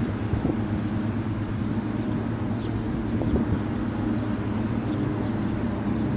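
Cessna Grand Caravan single-engine turboprop droning steadily as it climbs out after takeoff, with a low, even propeller hum.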